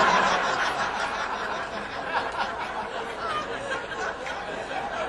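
Audience laughing, loudest at first and slowly dying down.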